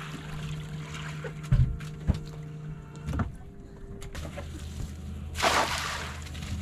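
A boat's motor hums steadily and shifts to a lower, different hum about four seconds in. Several sharp knocks come as cast nets are handled on the deck, and a short loud hissing rush comes near the end.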